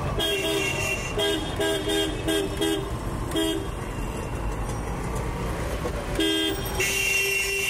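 Vehicle horns honking in street traffic: a quick run of short toots in the first few seconds, then longer held blasts near the end, over the steady rumble of traffic.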